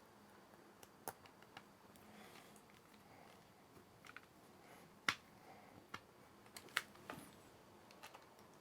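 Faint, scattered small clicks and taps of a precision screwdriver and tiny screws against a laptop's bottom case while the screws are being refitted, the loudest a little past halfway.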